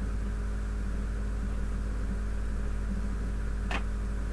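Steady low electrical hum with a faint hiss, broken by a single sharp click near the end.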